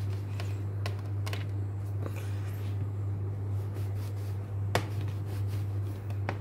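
A few light clicks and taps as an upturned plastic cup is pressed and twisted into a slice of bread on a plastic tray, the sharpest a little before five seconds in, over a steady low hum.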